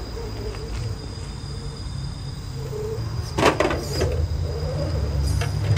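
A 1/10-scale RC rock crawler with a hard plastic body shell clambering over rocks: sharp knocks and scrapes of its tyres, chassis and shell against the stone, loudest in a cluster about three and a half seconds in and again near the end, over a low steady rumble.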